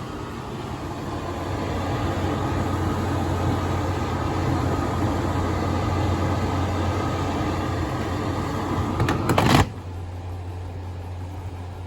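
Panasonic drum-type washer-dryer running on its drying cycle with a loud, construction-like mechanical noise over a strong low hum, building over the first two seconds. About nine and a half seconds in there is a brief louder burst, then it drops suddenly to a quieter hum. A noise this loud in drying is an abnormal noise that the repairer warns leads to breakdown.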